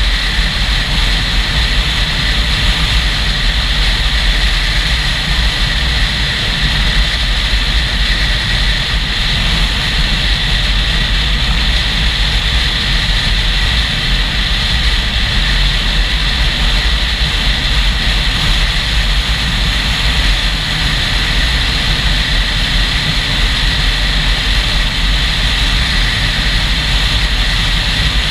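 Steady rush of wind and road noise from a moving motorcycle, buffeting a rider-mounted GoPro microphone, with a deep rumble underneath and an even hiss on top.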